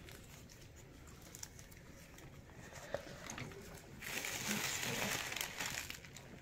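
Faint handling noise with a few light clicks, then about four seconds in a louder crinkling rustle lasting about two seconds.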